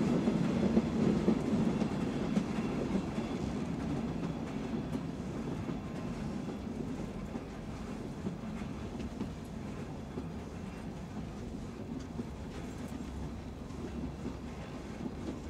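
Former Erie Lackawanna caboose rolling along the track, its wheels rumbling and clacking over the rail joints, gradually getting quieter.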